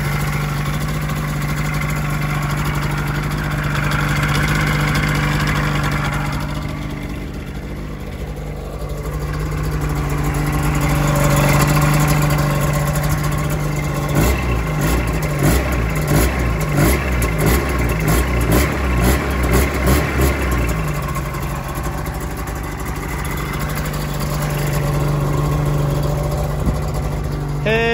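Freshly rebuilt Polaris IQR 600 two-stroke twin snowmobile engine idling through its first break-in heat cycle. For several seconds around the middle its note pulses unevenly, rising and falling, then it settles back to a steady idle.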